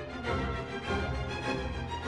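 Background music: held notes over a steady beat.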